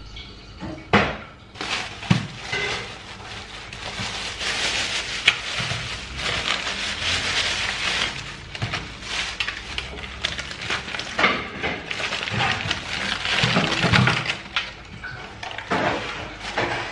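Plastic carrier bag rustling and crinkling as it is handled and opened, with occasional knocks as meat pieces are set down on a metal baking tray.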